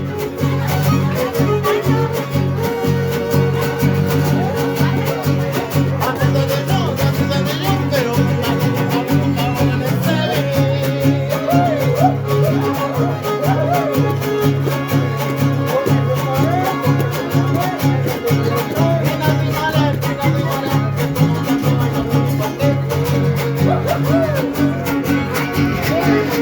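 Son huasteco string trio playing an instrumental passage: a violin carries a winding, ornamented melody over a steady strummed rhythm from the guitars.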